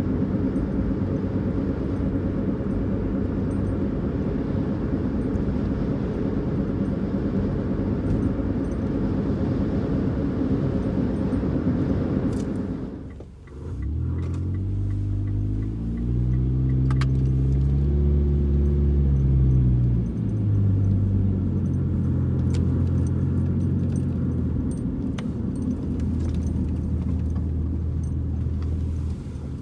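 Car cabin sound while driving: a steady rumble of road and tyre noise at speed. About halfway through it dips briefly, and then the engine's hum comes forward, rising and falling in pitch, with a few light clicks and rattles.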